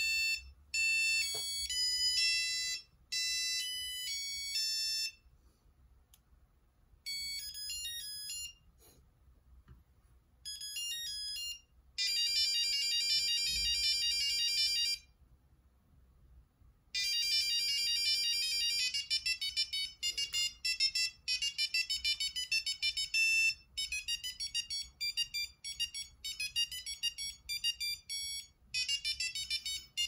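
Original ringtones of a Sony CMD-Z5 mobile phone playing from its small speaker: several short electronic beeping melodies one after another, with brief pauses where one tune stops and the next begins. The last part is a fast run of rapid notes.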